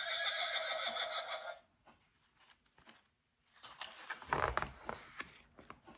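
Recorded horse whinny played from a toy animal-sound button pad, lasting about a second and a half. About four seconds in, the large paper page of a picture book is turned with a rustle.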